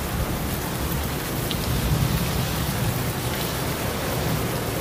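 Heavy tropical rain falling on a car's windshield and roof, heard from inside the car, steady throughout with a low rumble underneath.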